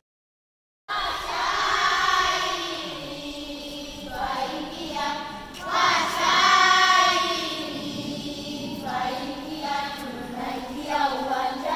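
A group of children singing a poem together as a choir, starting about a second in after a brief silence.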